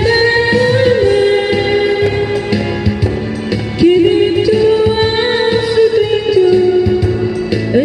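Live pop music: a singer holds long notes over band accompaniment with a steady beat.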